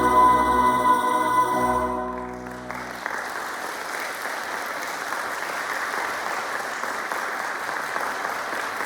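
A women's choir holds the final chord of the song, which ends about three seconds in; the audience then applauds steadily.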